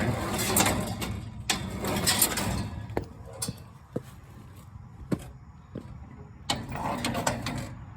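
Pickup reel of a New Holland 311 square baler being spun by hand: swishing, whirring runs with scattered light clicks and knocks of metal parts. The reel turns easily, with no grinding or rough-bearing noise.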